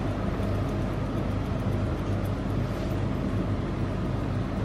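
A steady mechanical hum with an even rushing noise over it, unchanging, from a machine running in the grooming room.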